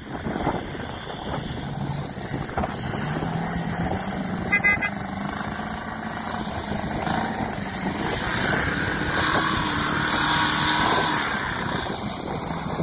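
Engine of a first-generation BMW X5 SUV running under load off-road, its note rising and growing louder about eight seconds in as it pulls up a grassy slope. A brief high-pitched tone sounds about four and a half seconds in.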